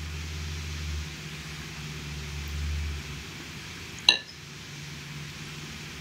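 A metal fork clinks once, sharply and with a short ring, against the plate about four seconds in, over a low steady hum.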